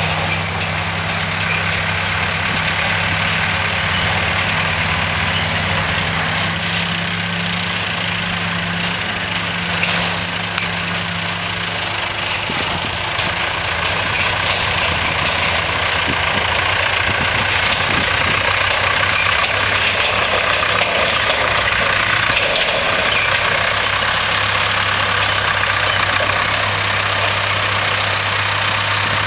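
Tractor diesel engine running steadily as it pulls a silage trailer across the field, coming closer and getting a little louder in the second half.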